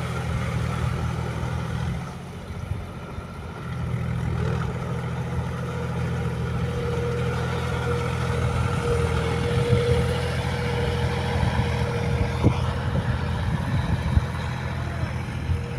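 John Deere tractor's diesel engine running steadily as it puddles a flooded rice paddy on iron cage wheels.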